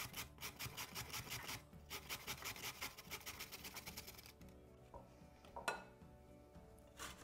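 A baby courgette being grated coarsely on a stainless-steel box grater: a quick, even run of rasping strokes, about five a second, that stops about four seconds in. A couple of light knocks follow.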